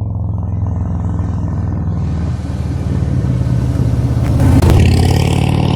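Harley-Davidson Milwaukee-Eight 114 V-twin engine running steadily at low revs. A hiss builds from about two seconds in, and the engine grows louder near the end as it is opened up a little.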